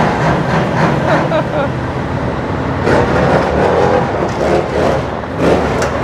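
Several heavy truck diesel engines running and revving together, loud and steady, as show trucks warm up side by side.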